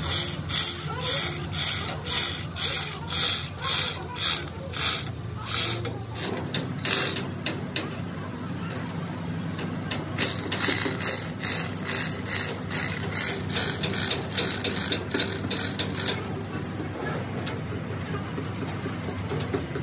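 Manual chain hoist being hauled by its hand chain: chain rattling and the hoist's pawl clicking, about two clicks a second for the first several seconds, then faster and more irregular. A steady low hum runs underneath.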